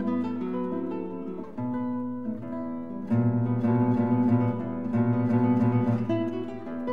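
Acoustic guitar music, chords plucked and strummed, growing louder about halfway through.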